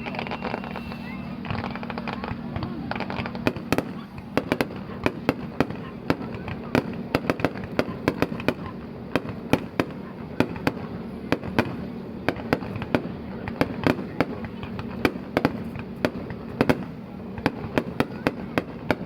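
Fireworks bursting overhead: a rapid, uneven string of sharp pops and crackles, several a second, the louder reports standing out above a steady background.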